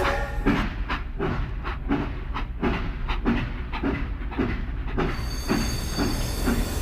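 Small motorised model machine running, with a rhythmic clacking about twice a second; a faint high whine joins about five seconds in.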